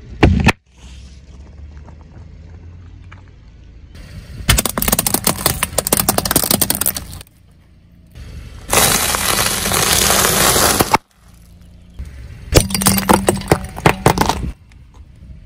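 Car tyre rolling over and crushing plastic baskets and other brittle objects. There is a sharp crack near the start, then three long spells of dense crackling and crunching, with short pauses between them.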